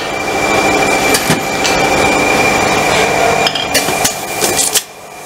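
Hard plastic containers knocking and clinking in the metal tray of a manual tray sealing and cutting machine, then the tray pushed in under the press with a few sharp metal knocks. Under it runs a steady mechanical hum with a thin high whine, which drops away near the end.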